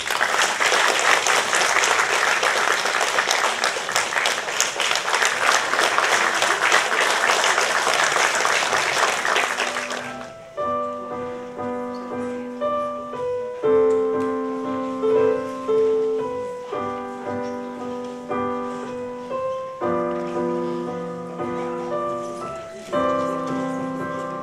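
Audience applauding for about ten seconds, then a Yamaha digital piano playing a slow piece of held chords.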